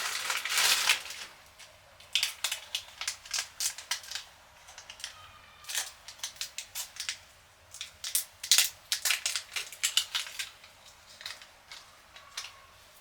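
Monitor parts and packaging being handled: a short rustle at the start, then a long run of scattered sharp clicks and knocks, as of plastic pieces being set down, snapped and tapped.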